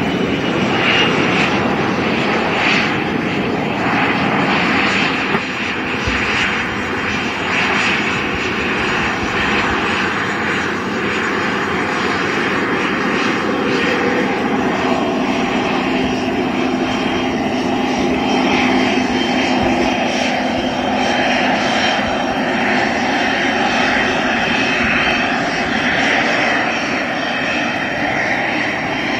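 Airliner engines running loud and steady for the whole stretch, a dense rushing noise, with a faint steady hum that shows up in the middle.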